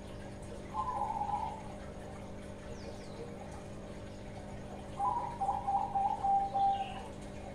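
Young Bangkok-line zebra dove (perkutut) cooing from its cage: one short coo about a second in, then a longer run of several notes from about five to seven seconds in. It is a young bird beginning to sing freely.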